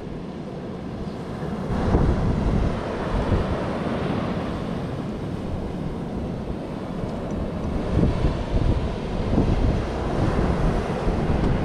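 Wind buffeting the microphone in uneven gusts, growing louder about two seconds in.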